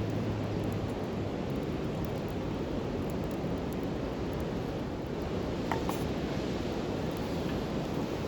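Campfire burning: a steady low rushing noise, with a couple of faint pops about six seconds in.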